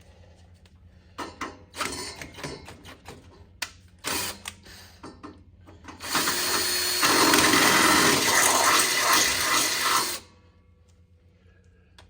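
A few seconds of clicking and rattling metal parts, then a battery drill running hard for about four seconds, boring into the foot of a belt sander to take a caster. It stops abruptly.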